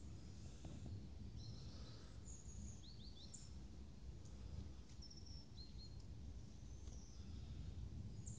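Small birds chirping: scattered short high calls, with a quick run of three about three seconds in, over a faint steady low rumble of outdoor background noise.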